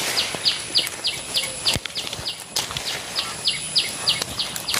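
A bird's short high chirp repeated about three times a second, over scattered crackles and snaps of bean vines being pulled and broken by hand.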